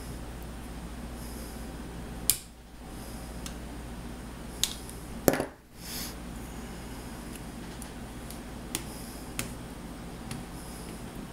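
Sharp clicks and taps of small hand tools and parts being worked on an RC touring car's front axle during disassembly, about six in all, the loudest a close pair about five seconds in, over a steady low hum.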